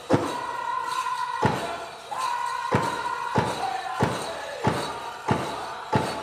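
Powwow drum song for the prairie chicken dance: a big drum struck in unison about one and a half beats a second, under singers holding high, wavering notes.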